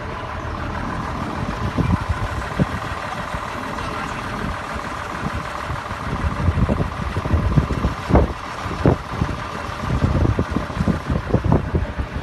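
Small LPG bobtail tank truck's engine running steadily. From about halfway through, wind buffets the microphone with irregular low thumps.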